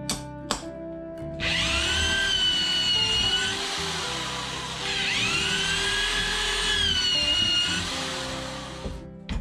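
A couple of hammer taps, then a corded electric drill boring through a wooden 2x4. The motor spins up about a second and a half in, runs steadily for two seconds and slows, then speeds up again for about three seconds before winding down near the end.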